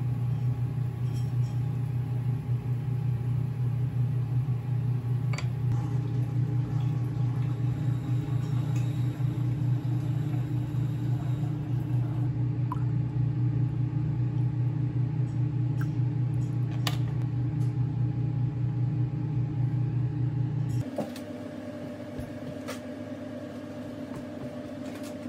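Steady low mechanical hum of a running kitchen appliance, with a few faint clicks. About 21 s in it stops, leaving a quieter, higher-pitched steady hum.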